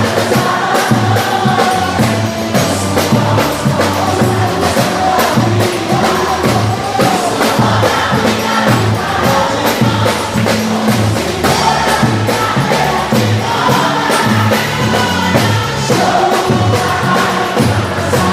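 Music with a group of voices singing over a steady percussion beat and a moving bass line.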